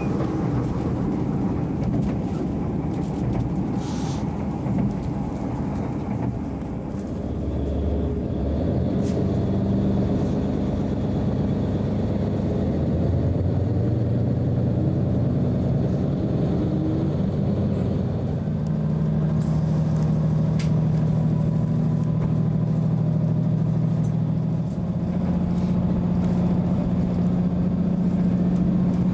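Diesel train running, heard from aboard: a steady rumble with an engine drone whose note shifts a couple of times, and a few faint clicks.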